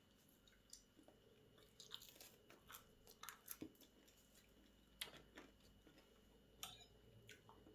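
Faint chewing of a bite of soft pretzel, heard as scattered small clicks in near silence, with one sharper click about five seconds in.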